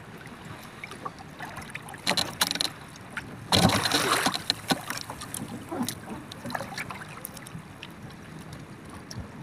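Water lapping around a small outrigger canoe, with wind on the microphone. A short clatter of handling noise about two seconds in, then a loud burst of splashing and rushing about three and a half seconds in, as a handline is thrown out.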